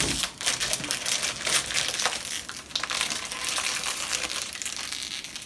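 Packaging of a Mystery Wand box crinkling and crackling as it is worked open by hand, in rapid irregular rustles.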